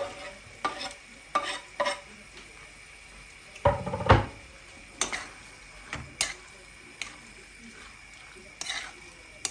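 Metal spoon scraping chopped ox kidney off a wooden chopping board into a frying pan, then stirring the pan: a series of short clinks and scrapes, with a heavier knock about four seconds in.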